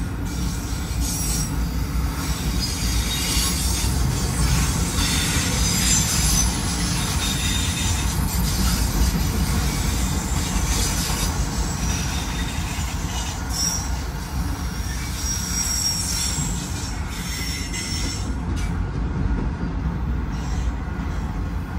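Freight train of autorack cars rolling past: a steady low rumble of steel wheels on rail, with high-pitched wheel squeals that come and go over it.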